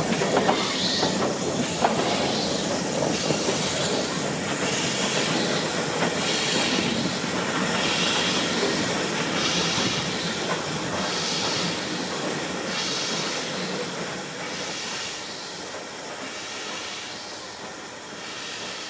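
Steam-hauled train, Ivatt class 2MT 46447, moving slowly, with a regular hissing beat from the locomotive about every second and a half over the running and rail noise. It grows steadily fainter as the train moves away.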